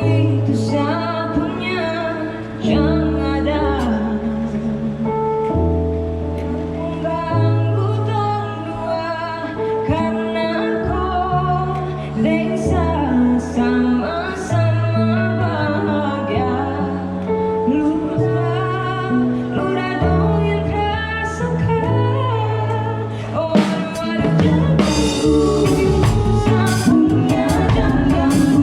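A live band plays with a woman singing: the bass holds notes that change every second or two, and the drums and cymbals get busier near the end.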